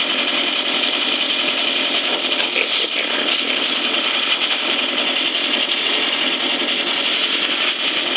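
Small two-stroke engine of a backpack leaf blower running steadily: a continuous buzzing drone with no change in speed.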